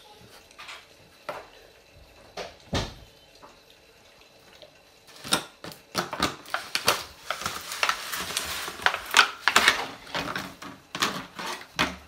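Hotpoint WMFUG 942 washing machine drum turning a wet load with water in it. Irregular knocks and clicks come sparsely at first, then thick and fast from about halfway.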